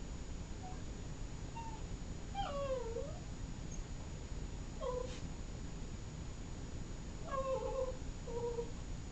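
A Boston Terrier whining in a series of short, high whimpers, several of them falling in pitch. The longest is about two and a half seconds in, and a cluster comes near the end. The whining sounds like begging for a bone that the other dog is holding.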